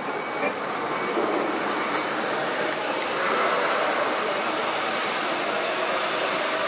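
CNC router running: a steady whirring hiss that grows a little louder in the first second and then holds even.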